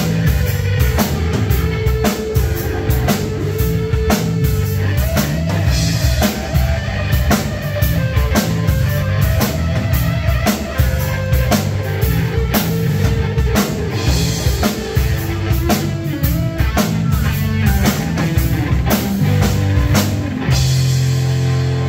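Live rock band playing an instrumental passage: electric guitar through a Marshall amp, electric bass and a drum kit with fast, steady drum hits. Near the end the drums drop out and a held chord rings on.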